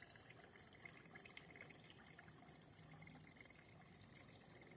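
Faint, steady trickle of running water in a garden pond.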